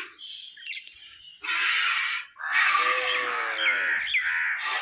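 Hand-milking into a steel bucket: jets of buffalo milk hiss into the pail in a run of bursts from about a second and a half in. Birds chirp and call over it.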